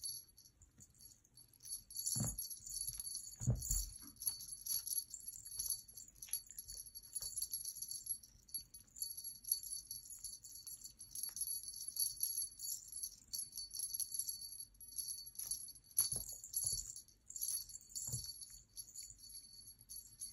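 Small bell on a feathered wand cat toy jingling continuously as the toy is jerked about on its string, with a few dull thumps of the kitten pouncing on the rug.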